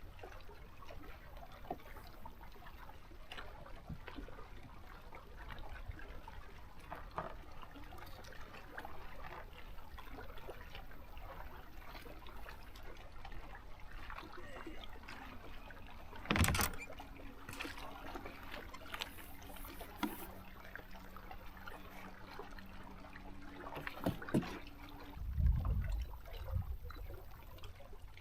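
Water lapping and trickling against a small fishing boat, with a sharp knock about halfway through and a few low thumps near the end.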